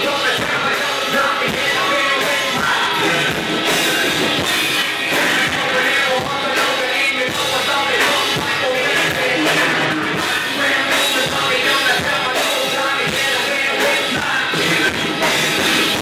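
Live rock band playing loud, with distorted electric guitar, a drum kit keeping a steady beat, and a singer's voice over the top, heard close to the stage.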